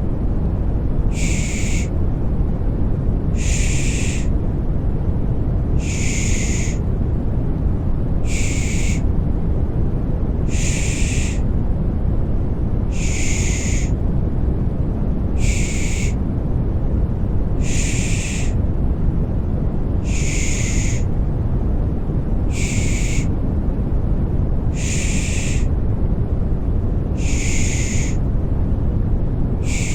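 Rhythmic 'pış pış' shushing for soothing a baby: short hissing 'shh' sounds repeating evenly about every two and a half seconds over a steady, deep white-noise rumble.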